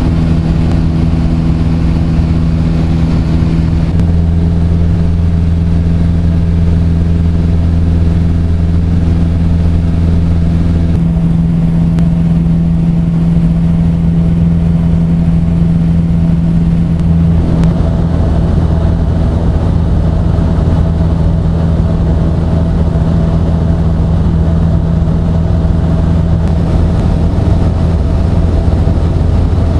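Light aircraft's piston engine and propeller running steadily in cruise, a loud drone heard from inside the cabin. Its tone shifts slightly a few times.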